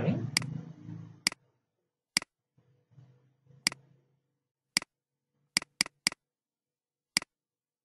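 Computer mouse button clicking, about nine sharp single clicks at irregular intervals, with a quick run of three a little past the middle.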